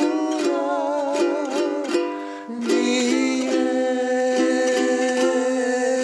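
A man and a woman singing together to a strummed ukulele. The voices waver on their notes in the first half, then hold one long steady note from about halfway.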